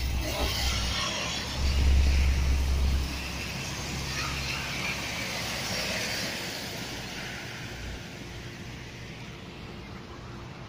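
Hiss of heavy rain on a flooded street mixed with tyre hiss from traffic on the wet road, swelling over the first several seconds and then fading. A low rumble stands out from about one and a half to three seconds in.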